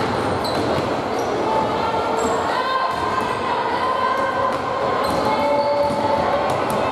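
Basketball game sounds echoing in a large sports hall: a ball bouncing on the hardwood court, short squeaks from sneakers, and players' voices.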